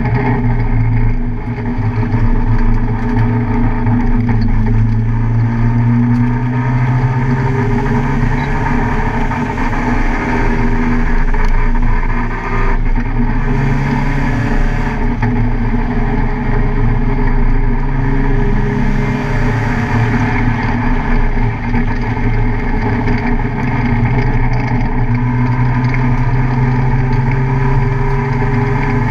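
Car engine running hard under load, its pitch rising and falling with throttle and gear changes. There are brief dips about three times, as when the driver lifts or shifts.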